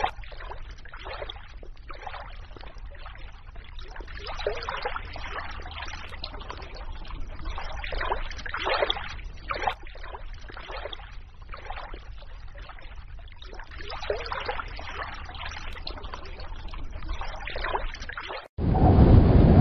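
Running water trickling and babbling in an uneven, splashy stream sound. Near the end it cuts off suddenly and a louder, steady rushing noise with a hum takes over.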